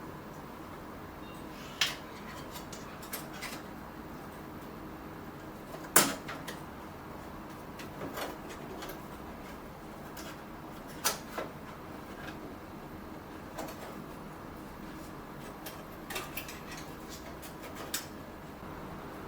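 Scattered clicks and knocks, about ten in all, from pipe straps being snapped into the slots of a clamp-on flow meter's transducer guide rail, over a steady background noise. The loudest click comes about six seconds in.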